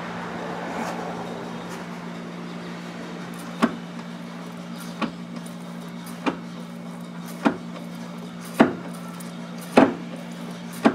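Clutch pedal being pumped by hand, knocking sharply seven times at an even pace of about one every 1.2 seconds from about three and a half seconds in, to push air out of a newly fitted clutch master cylinder through its loosened hydraulic line fitting. A soft hiss fades out in the first second or two, and a steady low hum runs underneath.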